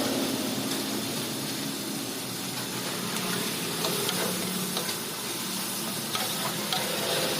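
Food sizzling in a pan, a steady hiss, with occasional light clicks of a utensil stirring against the pan and a low hum underneath.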